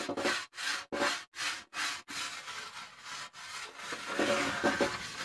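Pumice grill stone scrubbing the wet, soapy rolled-steel top of a Blackstone griddle in back-and-forth strokes, a rasping scrape about two strokes a second at first, then running more continuously. It is stripping the factory coating or old seasoning before reseasoning.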